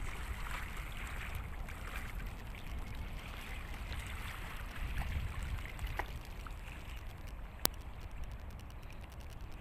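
Small waves lapping and trickling among shoreline rocks on a calm sea, over a low steady rumble. A single sharp click comes about three-quarters of the way in.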